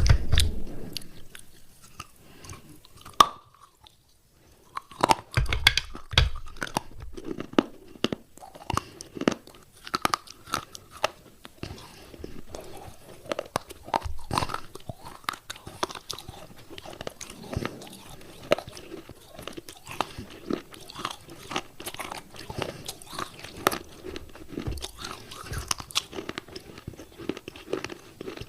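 Close-up biting and chewing of wet clay pot pieces: a dense run of irregular crunches and crackles, with a short pause about four seconds in.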